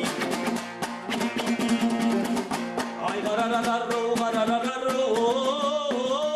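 Kazakh folk-song accompaniment on a dombyra, strummed in fast, dense strokes. About three seconds in, a held, sliding melody line, sung or played, joins over the strumming.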